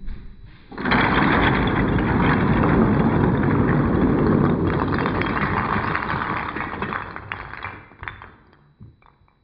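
Hundreds of small wooden Lincoln Logs toppling, tumbling and sliding against each other as a standing log structure is swept down: a dense, loud clatter that starts just under a second in, lasts about seven seconds, then thins to a few last clicks and fades.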